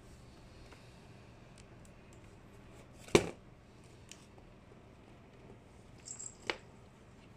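A baby's hands hitting a laptop: one sharp smack about three seconds in, then a lighter tap on the keyboard near the end.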